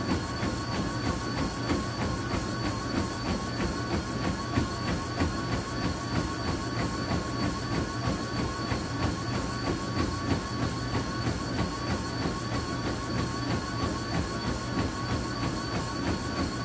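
Treadmill running: feet striking the moving belt in an even rhythm, about three steps a second, over the steady whine and hum of the treadmill motor.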